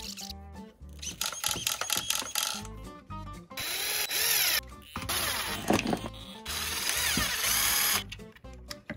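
Electric screwdriver running in three bursts a few seconds in, its pitch sweeping as it drives servo mounting screws into the RC car chassis. Background music with a steady beat plays underneath.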